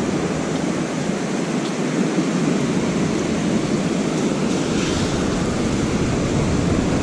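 Steady noise of ocean surf with wind on the microphone, and a brief higher hiss about five seconds in.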